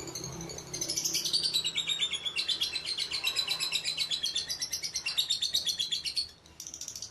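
Lovebird singing a long, fast chattering trill of rapidly repeated high notes for about five seconds. It breaks off briefly near the end, then starts another run at a higher pitch.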